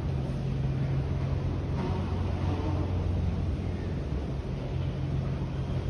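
Steady low hum of subway station background noise on an empty platform with no train present, a constant drone under a light hiss.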